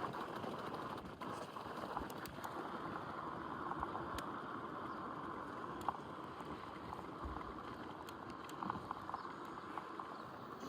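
Dualtron Thunder 2 electric scooter being ridden on freshly fitted 100/55-6.5 grippy tires: steady tyre-on-road and wind noise, with scattered small clicks and rattles.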